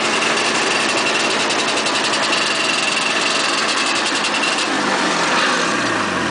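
1980 John Deere Spitfire 340 snowmobile's two-stroke engine idling steadily. Near the end its pitch falls as it slows toward a stop.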